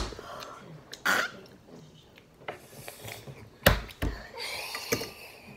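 A child coughing and breathing hard through the mouth from the heat of very spicy noodles, with a few sharp knocks on the table.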